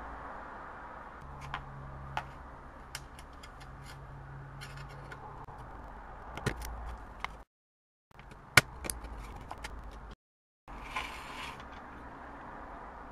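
Smoke alarm being taken apart by hand: scattered clicks, taps and scrapes of its parts over a steady hiss, with one sharp, loud click about halfway through and a short scraping rustle a few seconds later. The sound drops out completely twice, each time for under a second.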